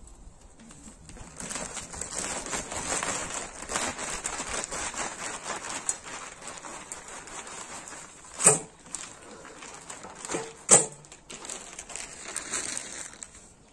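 Compost pouring out of a plastic bag into the mesh drum of a compost spreader, a steady rustling hiss, with two sharp knocks about two seconds apart past the middle.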